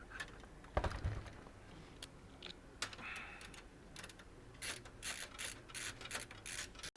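Scattered light clicks and taps of computer-case parts being handled, with a dull thump about a second in and a quick run of clicks near the end.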